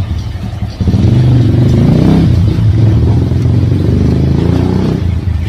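A motor vehicle engine runs steadily close by, its pitch wavering a little, with a brief drop in level about a second in.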